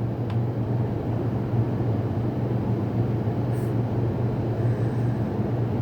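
Steady low droning hum and rumble of something running, with no breaks.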